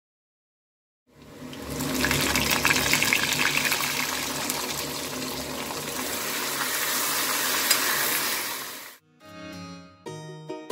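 Sliced onions sizzling and crackling in hot oil in a kadai, starting about a second in. It cuts off near the end, where plucked-string music begins.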